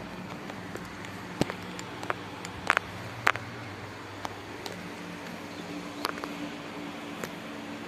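A steady low machine hum with scattered light clicks and taps. The three sharpest clicks fall about one and a half, two and three quarters, and three and a quarter seconds in.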